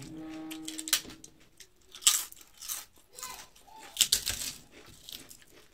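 Papad being crushed by hand on a steel plate: a run of sharp crackling crunches, loudest about two seconds in and again about four seconds in.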